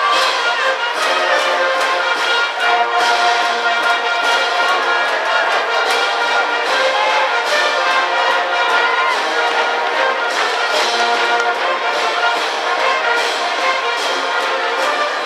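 High-school brass band playing a cheering tune for its baseball team, trumpets and trombones sounding together in a steady, loud stretch of music.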